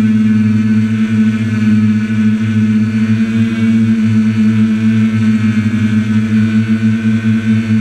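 Quadcopter's electric motors and propellers humming steadily while it hovers, heard close up from the camera mounted on the drone: a low hum with a second, higher tone above it, wavering slightly as the motors adjust.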